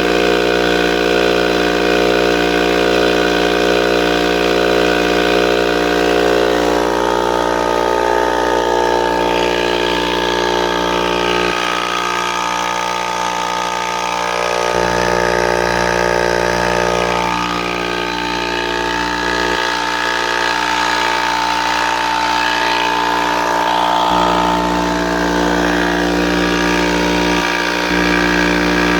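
A 5 hp, 20-gallon Charge Air air compressor running steadily.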